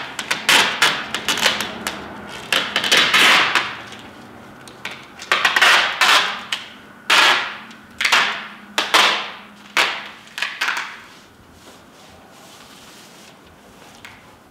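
Tyvek seam tape being pulled off its roll in a run of short peeling tears, about eight pulls over some ten seconds.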